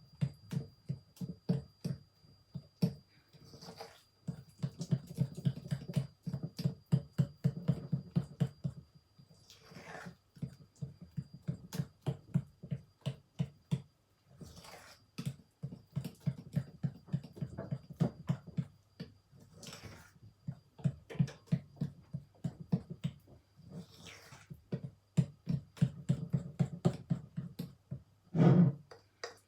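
Pancake batter being beaten by hand in a bowl: quick, rhythmic strokes against the bowl in runs of several seconds with short breaks. The batter is being beaten until it is creamy and free of lumps.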